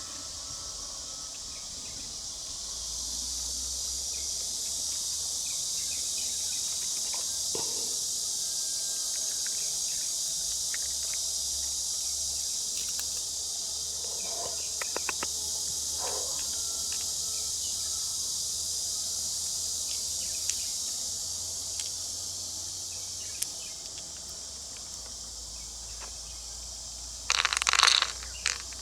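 Steady high-pitched chorus of insects, such as crickets, with scattered small clicks and scrapes. A short, louder rustling burst comes near the end.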